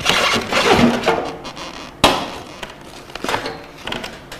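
Unboxing handling noises: packaging rustling and scraping for the first second and a half, a sharp knock about two seconds in, then a few lighter clicks as small accessories are set down on a metal table.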